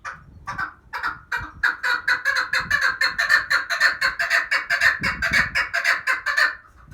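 Female chukar partridge calling: a run of short clucking notes that starts sparse and quickens into a rapid, even series of about five a second, then stops a little before the end. It is the hen's call that draws in male partridges.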